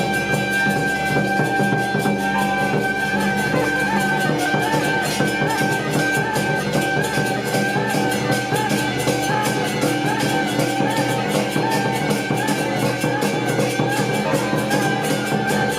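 Traditional Taiwanese temple procession music: shrill held reed-horn notes over a steady beat of drums and cymbals.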